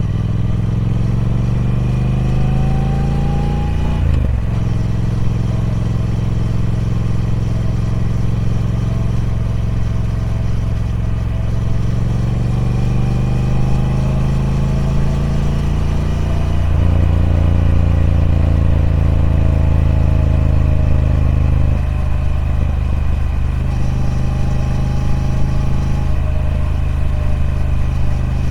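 Triumph Speed Twin 1200's 1200cc parallel-twin engine through its stock exhaust, pulling under way. Its pitch climbs steadily, then breaks and drops about four seconds in and twice more later, like gear changes.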